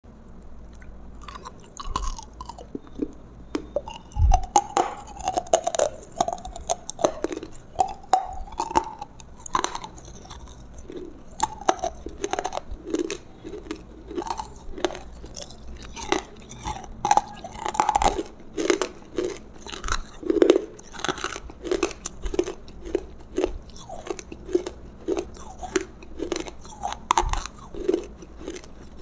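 Close-miked eating of roasted food: crunchy bites, then steady chewing at about two chews a second.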